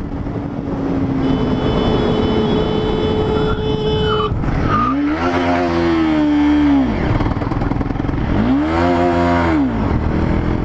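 Motorcycle on the move with steady wind and road noise; its engine revs up and back down twice, around the middle and again near the end.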